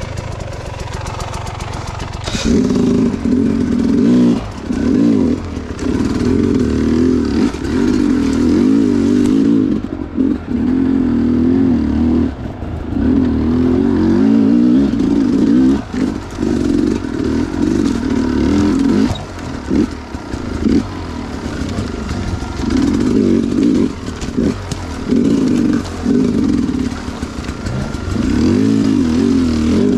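Two-stroke dirt bike engine running hard and revving up and down as the throttle is worked, its note dropping away briefly every few seconds and picking up again.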